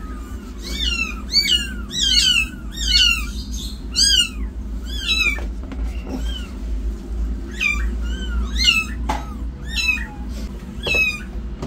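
Newborn kittens crying in short, high, thin mews, one after another. The cries come thick and fast for the first five seconds, then more spaced out.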